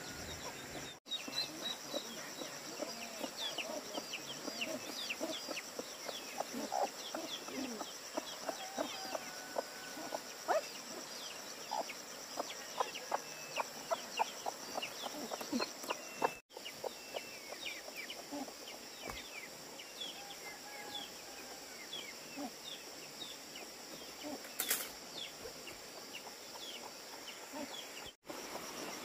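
A brood of young poultry peeping: many short, high, falling peeps in quick succession, over a steady high buzz of insects.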